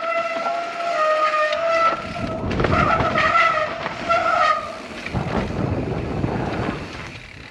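Mountain bike disc brakes squealing in a steady, slightly wavering tone during a downhill run. The squeal stops about four and a half seconds in. From about two seconds in, tyres rumble over the dirt trail under it.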